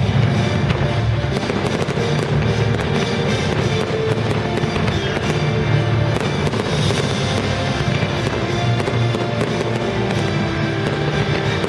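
Fireworks launching and bursting in a continuous run of bangs and crackling, with music playing over them.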